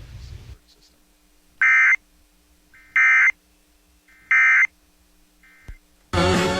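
Emergency Alert System end-of-message data bursts: three short, loud, buzzy digital warbles about 1.3 s apart, the coded signal that closes the alert. Music starts near the end as normal programming resumes.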